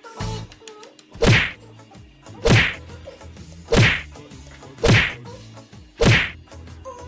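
Background music track with a sharp whip-like hit repeating about every second and a quarter over a steady low bass line.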